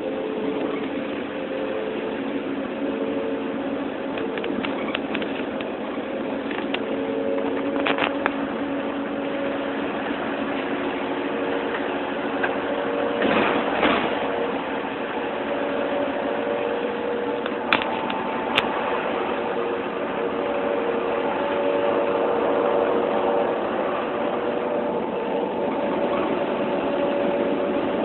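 An engine running steadily: a constant rushing drone with held tones that shift a little in pitch now and then, and a few sharp clicks about halfway through.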